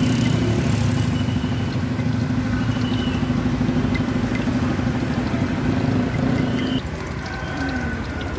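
An engine idling steadily with an even hum, cutting off about seven seconds in.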